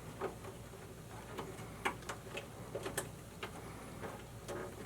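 Irregular light clicks and ticks of a ground wire being fed through a hole in a metal electrical subpanel, the wire tapping and scraping against the panel.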